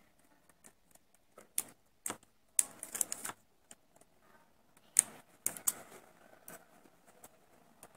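Irregular light clicks and ticks of a metal transfer tool and latch needles against the needle bed of a Passap knitting machine as stitches are bound off by hand, with a cluster of clicks about three seconds in and a sharp one about five seconds in.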